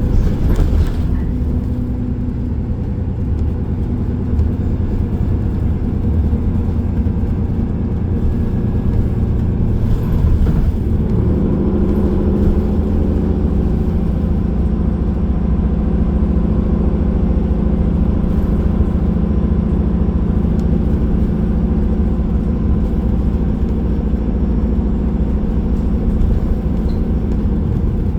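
Bus engine and road noise heard from inside a moving city bus, a steady low drone. The engine note shifts about ten seconds in.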